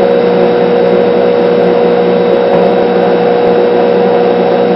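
Battery charger running on its high engine-start setting to power an electrolysis jar, giving a loud, steady electrical hum with a strong mid-pitched tone over a constant noise.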